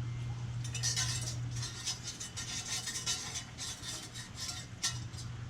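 Small metal parts of a Shimano XT M8000 rear derailleur, its tensioner spring among them, scraping and clinking as they are cleaned by hand. There is a sharp click near the end, over a steady low hum.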